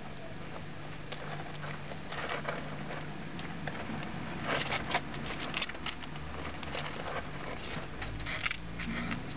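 Four-week-old kittens eating from a small plastic bowl: irregular clusters of small clicks and chewing noises, with paws shuffling on the paper lining, over a faint steady hum.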